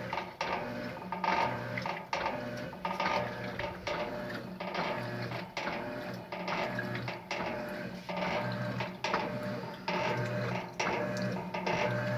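Electrolux LES11 11 kg washing machine agitating a load of bed sheets in its wash cycle: the motor hums in short pulses as the drive swings back and forth, with repeated clunks and swishes about once or twice a second.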